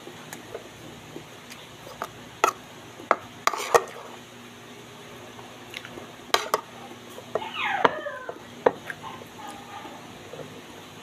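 A metal spoon and fingers clinking and scraping against a ceramic plate while eating, in a handful of sharp separate clinks, with a short squeal falling in pitch about two-thirds through.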